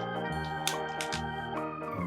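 Background music: sustained organ-like keyboard chords over bass notes that change about every half second, with a couple of short sharp clicks in the first half.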